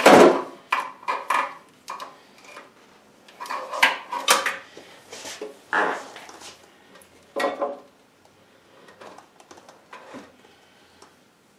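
Irregular metal clanks and knocks of lathe parts and tools being handled and fitted into the cabinet pedestal under the headstock, the loudest right at the start and a cluster about four seconds in, fading to faint handling after about eight seconds.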